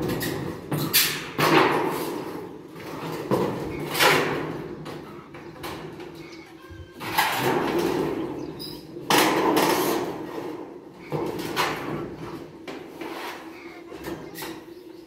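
Corrugated metal roofing sheet scraping and clattering against the timber frame as it is slid up onto the roof, in several loud spells a few seconds apart.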